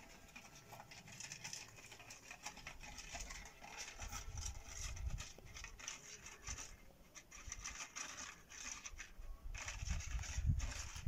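Cat eating from a metal bowl: quick, irregular crunching and clicking as it chews. A couple of low rumbles come in about four seconds in and again near the end, the later one the loudest.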